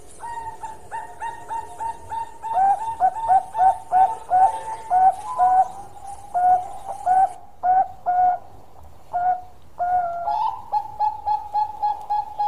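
Bangkok-type zebra dove singing its long cooing song: a quick run of short, clipped coos, about three a second, that slows to spaced notes with a short pause and then speeds up again near the end.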